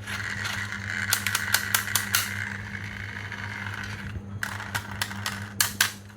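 Marbles rolling down a toy marble run with a steady rolling whirr, clacking against the track and each other in quick runs of clicks about a second in and again near the end.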